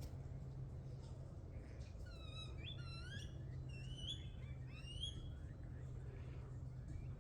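A bird calls about six times in quick succession: short, rising, slurred notes with overtones. A steady low hum runs underneath.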